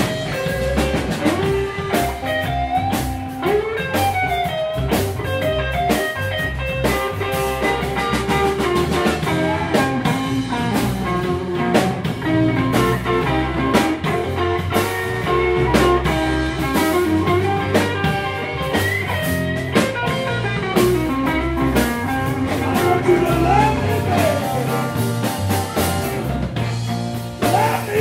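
Live blues band playing an instrumental passage: electric guitar lead with bent notes over bass and drum kit.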